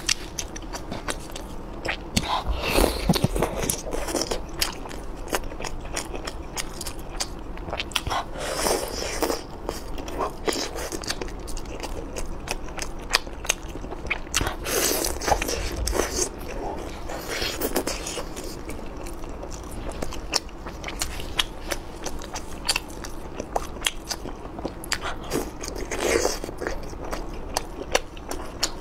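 Close-miked mukbang eating sounds: a person biting and chewing chewy, saucy skewered food. Many sharp wet clicks and smacks run throughout, with louder bursts of biting and chewing every few seconds and occasional crunches.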